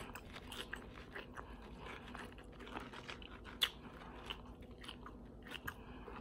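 Close-up mouth sounds of a person chewing tortilla chips, with irregular sharp crunches scattered through.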